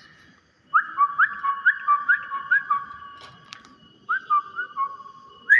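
Hill myna whistling a short rising note over and over, about twice a second. It gives two runs, one starting about a second in and one near four seconds, and each run fades away.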